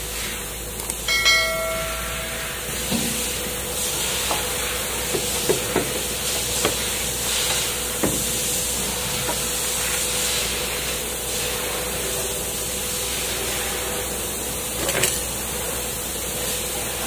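Scattered metal knocks and clanks as a front strut assembly (coil spring on shock absorber with a new top mount and bearing) is fitted up into the wheel well, over a steady hiss. A short ringing tone sounds a second or so in.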